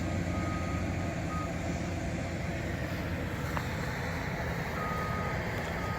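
Construction equipment's backup alarm beeping on and off at one steady pitch, over the steady rumble of heavy machinery running.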